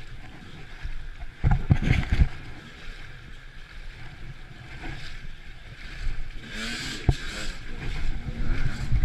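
Enduro motorcycle engine running as the bike rides through muddy water, with a few loud knocks about a second and a half in. From about six and a half seconds in, the engine revs up and down repeatedly as the bike climbs a bank.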